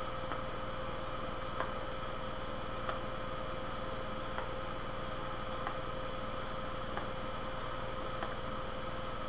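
Steady hum and hiss of room tone, with faint, evenly spaced ticks about every second and a bit.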